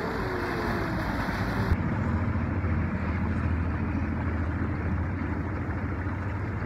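A boat's motor running steadily under a rushing wash of water and wind on the microphone. About two seconds in the sound changes abruptly: the hiss drops away and a steadier low engine hum takes over.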